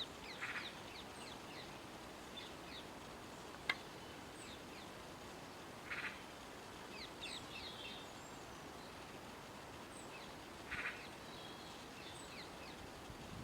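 Forest birds chirping and calling: many quick falling chirps from several small birds, with a short harsh rasp three times over a steady background hiss. A single sharp click just before four seconds is the loudest sound.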